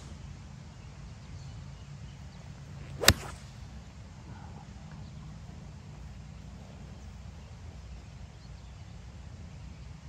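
A 4-iron striking a golf ball from the fairway about three seconds in: one sharp, loud crack of club on ball.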